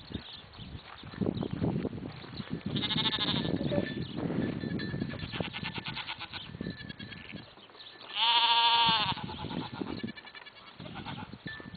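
Two high, quavering goat bleats, a short one about three seconds in and a louder, longer one about eight seconds in, over a low rumbling noise on the microphone.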